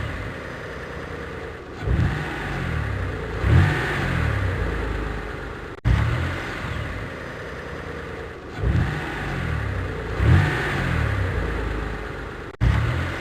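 Muscle car engine idling and revved twice in short blips, each rising and falling. The same few-second recording then cuts back in abruptly about six seconds in and repeats, with its two revs again, and restarts once more near the end.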